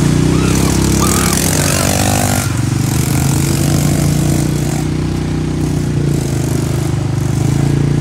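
Polaris ATV engine running steadily as the quad rides along, with a brief higher whine about two seconds in.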